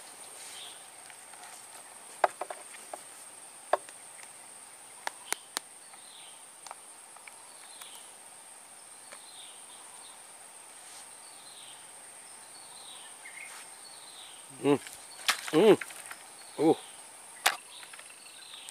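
Steady high-pitched insect drone in swamp surroundings, with a short falling chirp repeating about once a second and scattered light clicks. Near the end come three loud short sounds with a bending pitch.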